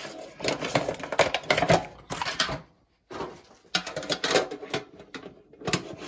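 Trading-card packaging and cards being handled close to the microphone: crinkling and rustling with small clicks, in two stretches split by a brief pause about halfway through.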